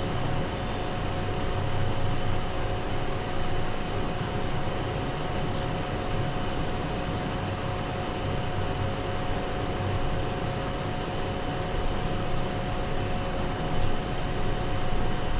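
Steady rushing noise with a constant low hum, the kitchen stove and its surroundings as a pot of water with herbs heats toward the boil.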